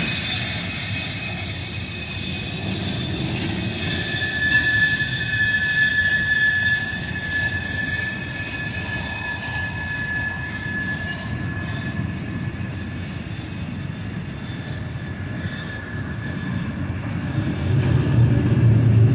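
Freight cars of a mixed manifest train rolling past, a steady rumble of steel wheels on rail. A single high, steady wheel squeal sets in about four seconds in, holds for several seconds and fades away, and the rumble grows louder near the end.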